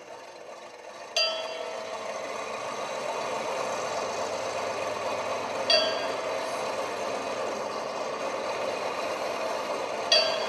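Stage sound effects: a steady machine-like drone comes in with a sharp ringing metallic strike about a second in, and two more such strikes follow, about four and a half seconds apart.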